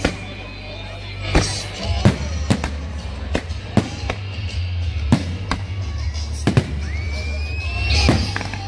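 Aerial fireworks shells bursting, a sharp bang about every second, over music playing with a steady low bass.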